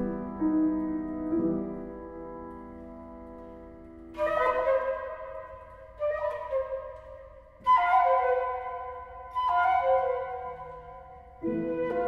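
Flute and piano chamber music. After a low passage that fades, a new chord sounds and dies away about every two seconds from roughly a third of the way in.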